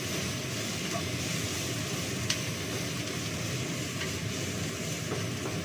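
Kitchen range hood extractor fan running with a steady low rushing noise, with one light click a little over two seconds in.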